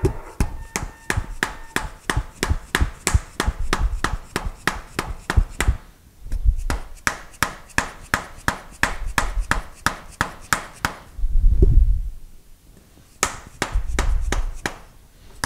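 Soft-faced mallet tapping a new bearing cup home onto a metal lathe tailstock: rapid light taps, about four a second. There is a dull, heavier thump about eleven seconds in before the tapping resumes.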